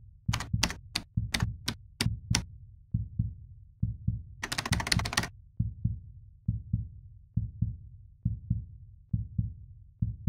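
Typewriter keys striking about eight times in quick succession, then a short rattling run of clicks near the middle, over a low heartbeat-like double thump that repeats about once a second throughout.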